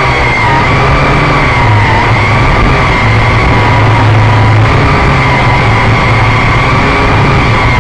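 Quadcopter's electric motors and propellers running, heard loud and close from the camera riding on it: a steady buzzing whine whose pitch wavers slightly as the throttle shifts.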